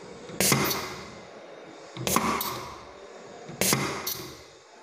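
Pneumatic double-acting cylinder on a 5/2 double-pilot valve, cycled by push buttons: three times, about every second and a half, a sharp clack followed by a short hiss of exhausting air that fades away.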